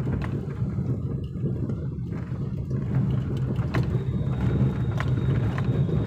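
Steady low rumble of a vehicle driving over a rough, broken road, with a few light knocks.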